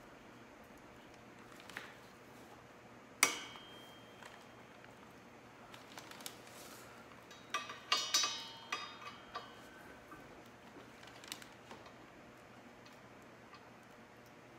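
Metal-on-metal clinks of an Allen key and bolt against the steel crash bar mount as the bolt is worked through: a sharp ringing clink about three seconds in, a cluster of ringing clinks around eight seconds, and scattered lighter taps.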